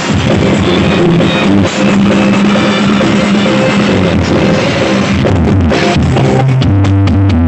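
Very loud music blaring from a carnival's stacked 'sound horeg' sound system. From about six and a half seconds in, deep bass notes are held long and dominate.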